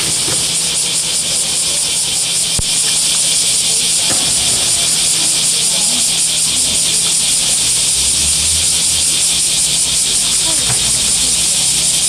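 A steady, loud high hiss, with a faint fast pulsing in it, over water splashing as a polar bear climbs against the pool wall and drops back into the water.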